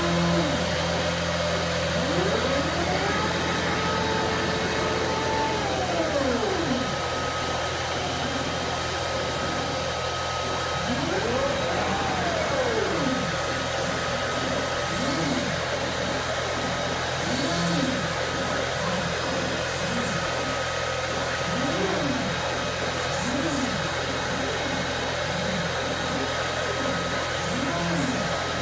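Gantry motors of a CNC laser cutting table whining as the head travels, each move a pitch that rises, holds and falls. The first moves are long, the later ones short and quick, about one every second or two, over a steady blower hum.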